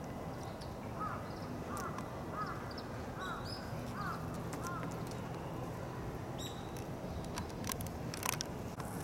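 A bird calling, a run of about six short arched calls in the first four seconds, over a steady low background hum. A few sharp clicks come near the end.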